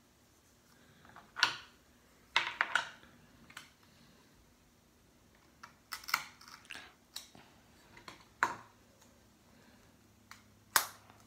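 Irregular sharp plastic clicks and snaps from a Kindle e-reader's casing and screen assembly being handled and pried apart with small tools, about a dozen in all with a few louder ones.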